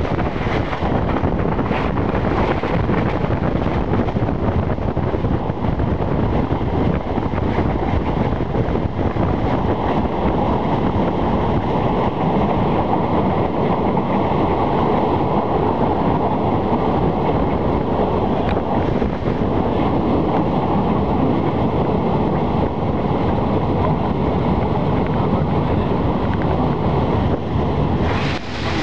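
Steady rush of wind buffeting the microphone from the window of a moving passenger train, with the train's running noise beneath it. The level dips briefly near the end.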